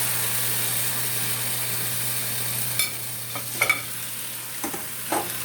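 Steady hiss and sizzle of a pot of pork stew cooking on the stove, just after cabbage has gone in. A low hum stops about halfway, and a few brief sharp sounds come near the end.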